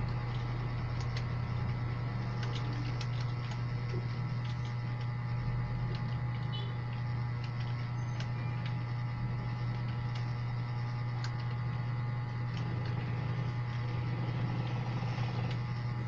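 A steady low hum with faint, irregular computer keyboard key clicks over it.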